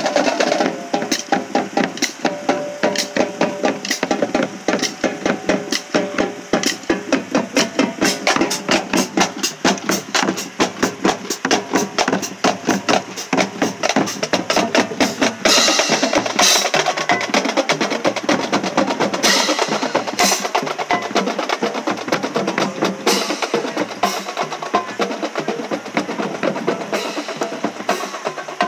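Marching band drumline playing a street cadence: rapid snare strokes over bass drum hits in a steady rhythm, with a few louder crashes around the middle.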